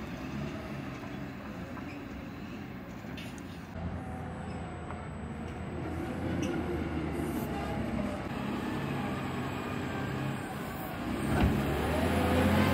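Wheel loader's diesel engine running steadily, growing louder over the second half. Near the end it revs up with a single thump.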